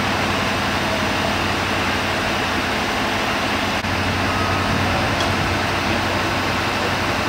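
Steady low mechanical drone with a constant hum, unchanging throughout.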